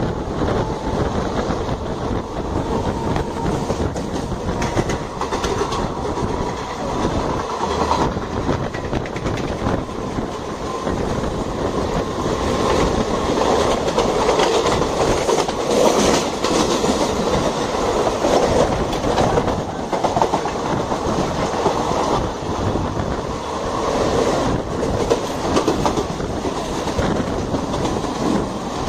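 Wheels of an ICF passenger coach running over the track at speed, a dense, continuous clickety-clack of clicks over rail joints and points.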